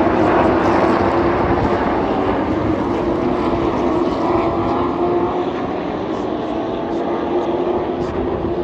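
Race truck engines running on the oval, a loud steady drone holding one pitch that eases slightly in loudness toward the end.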